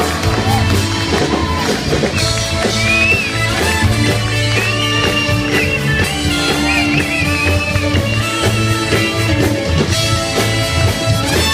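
Live band playing upbeat rock-style music with electric guitar, bass and drum kit, steady and loud.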